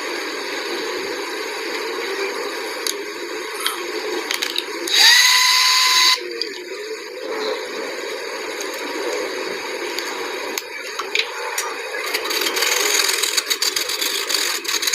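Tool-handling clicks and knocks over a steady background noise. About five seconds in, a small motor spins up with a quick rising whine, runs for about a second, then stops suddenly.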